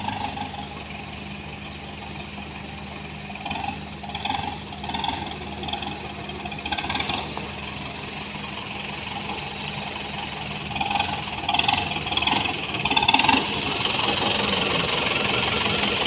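Kubota M9540 tractor's four-cylinder diesel engine running steadily as the tractor is driven. A few short, louder, higher-pitched sounds come over it about a quarter of the way in and again past the two-thirds mark.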